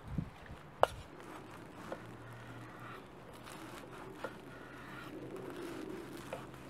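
A wooden spatula stirring food in a pan, with one sharp knock about a second in, then a knife sawing through a crusty baguette on a wooden board, the crust crunching and scraping.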